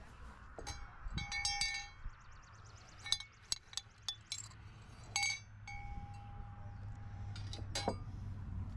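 Small hard household items clinking and tapping as they are picked up and set down. Several knocks leave a short metallic ring, and one ring is held for about two seconds in the middle.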